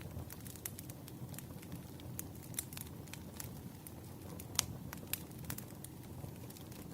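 Burning firewood crackling: irregular sharp pops and snaps over a low, steady rumble of the fire, with one louder pop about four and a half seconds in.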